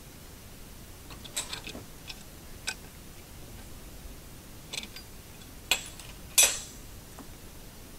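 Scattered metal clicks and clinks as parts and tools of a hydraulic floor jack are handled during its teardown. There are about seven at irregular spacing, the loudest a sharp knock about six and a half seconds in with a brief ring.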